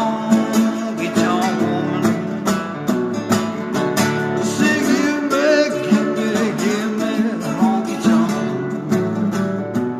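Slide guitar playing an instrumental break in an old-style blues song, its notes gliding up and down over a steady guitar beat.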